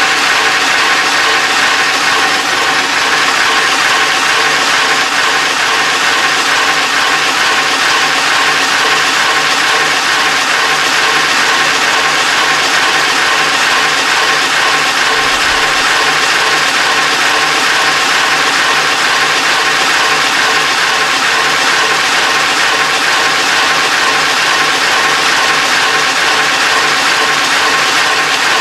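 Power Wheels ride-on toy car's electric motors and plastic gearboxes whirring steadily at full power as its wheels spin in place in a burnout.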